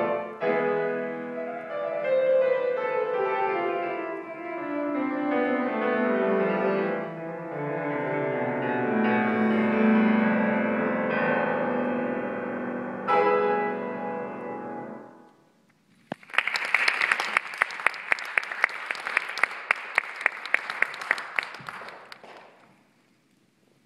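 Grand piano playing the closing bars of a classical piece, a long passage stepping down in pitch, then a final chord that rings out and dies away. About a second later an audience applauds for several seconds before the clapping fades.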